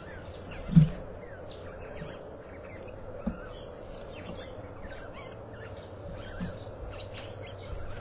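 Several small birds chirping and calling in quick, overlapping short notes, with a steady electrical hum underneath. A few short low thumps break in, the loudest about a second in and softer ones around the middle.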